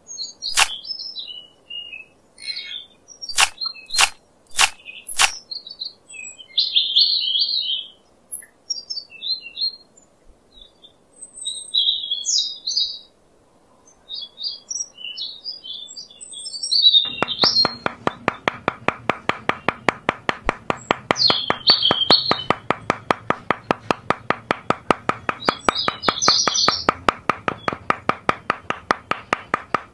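Small birds chirping throughout, with a few sharp clicks in the first seconds. From about halfway on, a small hammer taps bamboo stakes into sand in a fast, even run of about four light taps a second.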